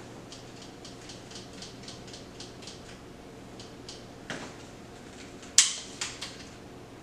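Crossbow being handled: a run of light, quick ticks, a knock a little after four seconds in, and a sharp, loud click about halfway through the second half, followed by a couple of smaller clicks.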